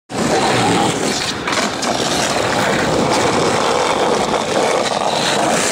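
Skateboard wheels rolling over sidewalk paving slabs close to the microphone: a steady, loud rumble, with a few clicks about a second in as the wheels cross slab joints.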